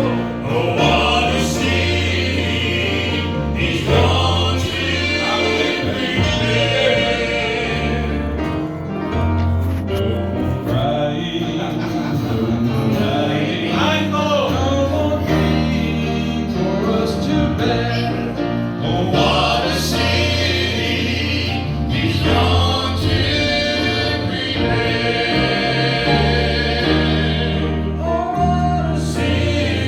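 A gospel vocal group singing a song in harmony, over accompaniment with held bass notes that change every couple of seconds.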